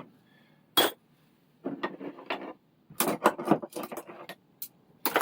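Metal tools or parts being handled on a workbench: a sharp knock about a second in, then a clattering run of quick clinks and knocks.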